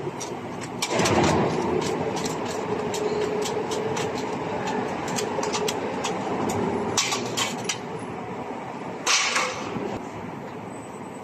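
Spiral duct forming machine running: steady mechanical noise with a faint steady hum through the first half and scattered metallic clicks. Two louder rushes of noise come about a second in and about nine seconds in.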